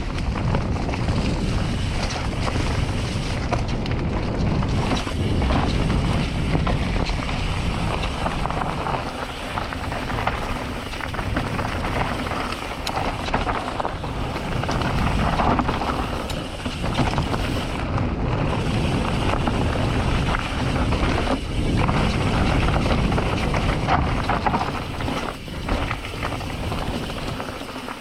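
Mountain bike riding over a dirt trail: wind rushing over the microphone over the tyre noise, with frequent rattles and knocks from the bike.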